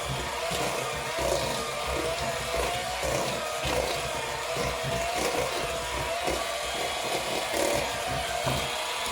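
Electric mixer running steadily, its beaters churning boiled potatoes, with a slightly wavering motor whine and irregular low knocks as the potato chunks are broken up.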